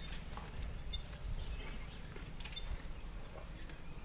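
Steady high-pitched insect drone, with a low background rumble and a few faint ticks.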